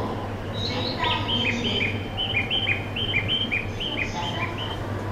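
Bird-like chirping: a quick run of short two-note chirps, alternating higher and lower, for about four seconds over a steady low hum.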